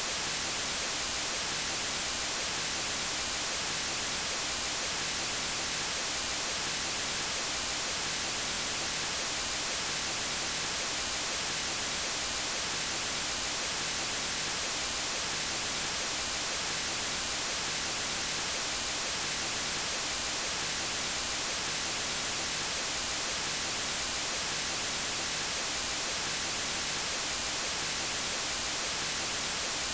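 Steady white noise: an even hiss with its energy strongest in the high frequencies, unchanging in level.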